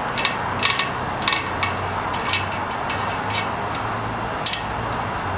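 Light, irregular metallic clicks and ticks of the front wheel's axle nuts and washers being turned by hand onto the axle.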